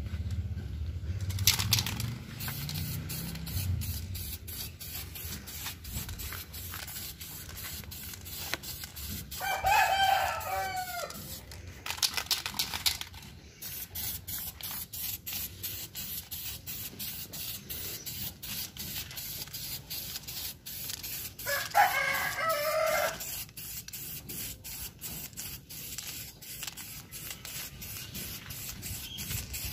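A rooster crows twice, about ten seconds in and again about twenty-two seconds in. Between the crows there are many short hisses from an aerosol spray-paint can being sprayed in bursts.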